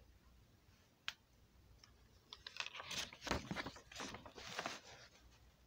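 Paper pages of a drawing book being handled and turned, rustling and crackling faintly, with a single light tap about a second in.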